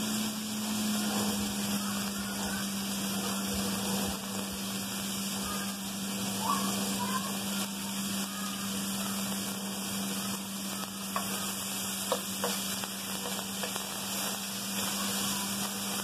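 Chopped bacon sizzling in a nonstick frying pan as it starts to fry: a steady hiss over a steady low hum, with a few faint clicks about three quarters of the way through.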